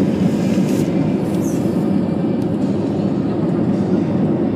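Steady cabin noise inside an Airbus A320-family airliner in flight: its jet engines and the airflow give a loud, even, low rumble.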